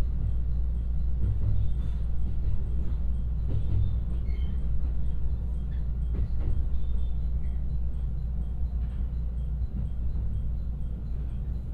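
Inside the passenger cabin of a JR West 223-series electric train: a steady low rumble from the running gear as it runs alongside a station platform, with a few faint knocks from the wheels on the track.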